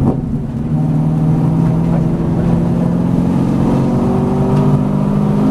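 V8 Supercar's V8 engine heard from inside the cockpit, running hard under load as the car accelerates out of a slow corner. The note is steady, rising slightly in pitch over the last second or so.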